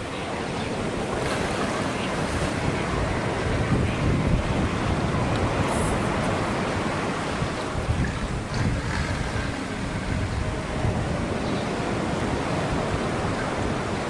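Steady wind buffeting the microphone, with a rushing wash of pool water sloshing beneath it.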